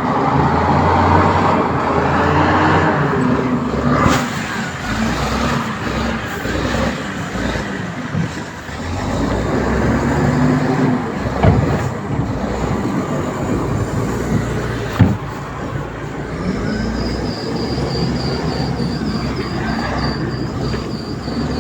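Heavy diesel engine of construction machinery running steadily, with two sharp knocks partway through and a faint high warbling tone joining near the end.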